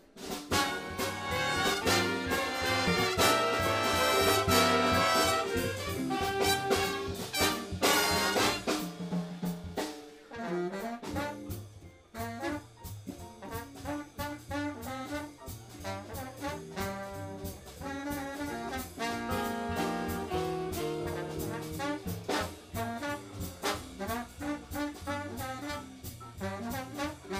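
Jazz big band of trumpets, trombones and saxophones playing live, all coming in loud together at once. The full ensemble drops back briefly around ten seconds in, then carries on.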